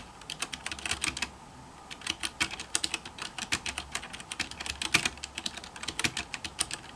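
Rapid typing on a WASD mechanical keyboard fitted with new custom-printed keycaps, a quick run of key clicks. There is a short pause about a second in, then the typing resumes.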